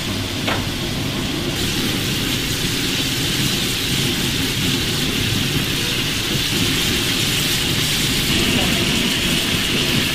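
Open gas flame burning under two aluminium dishes of trotters in broth: a steady hiss and sizzle over a low rumble, with one short tick about half a second in.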